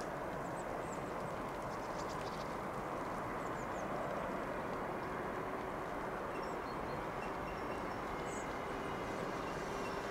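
Distant electric passenger train approaching on snow-covered track: a steady low rumble with a faint even hum that comes in about four seconds in.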